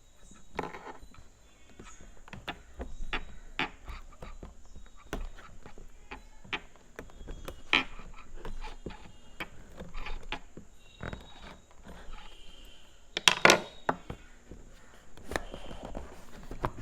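Scattered clicks, taps and rustles of an Acer laptop charger and its packaging being handled and unpacked, with a louder cluster of knocks about thirteen seconds in.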